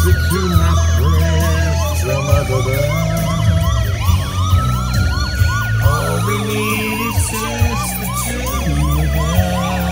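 Emergency-vehicle siren: a wail that rises, holds and falls slowly, starting again about every five seconds, overlaid with a faster yelping sweep about three times a second, over a low steady rumble.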